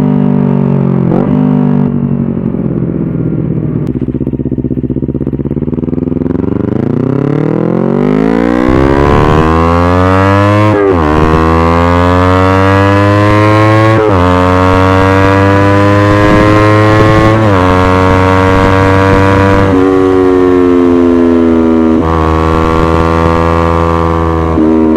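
Kawasaki Ninja 250 parallel-twin engine running through a Tridente F22 aftermarket silencer and stainless header. The revs fall off, then the bike accelerates through the gears: the pitch climbs and drops sharply at each of several upshifts, then holds steadier near the end.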